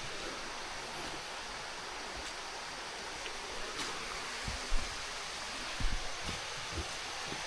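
Steady rushing of a jungle stream, with a few dull low thumps about halfway through.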